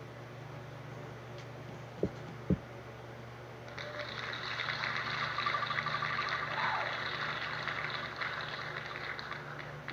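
Recorded applause from a wheel-of-names web page, announcing the winning slot, starting about four seconds in and dying away near the end. Two short soft thumps come about two seconds in, just before it.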